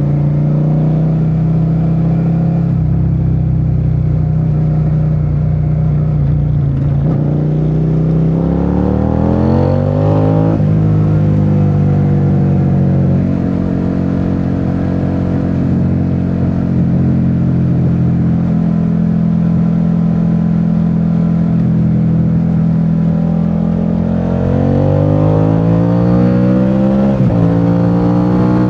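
Suzuki SV650's 90-degree V-twin engine on the move, running at a steady cruise, pulling up through the revs about a third of the way in and again near the end, the pitch dropping sharply at each upshift.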